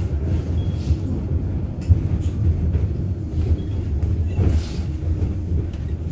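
Inside a 71-623-02 low-floor tram car running along the track: a steady low rumble from the wheels and running gear, with a few light clicks. A faint short high beep sounds twice, about three seconds apart.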